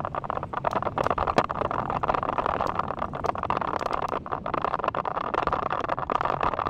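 Wind rushing over the microphone of a camera riding on a bicycle speeding downhill, with frequent sharp rattles and clicks as the bike jolts over the road surface.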